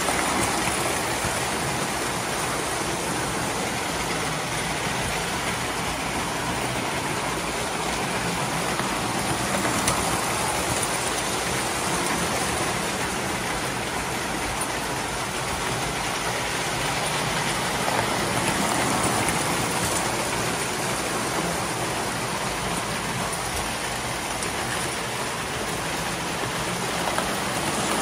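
Several O gauge model trains running at once on three-rail tinplate track: a steady, dense rumble of wheels on the metal rails and electric motors, swelling briefly a few times.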